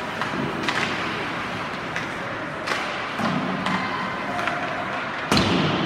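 Ice hockey play in an arena: scattered sharp clacks of sticks and puck over the steady rink noise, then one loud thud near the end.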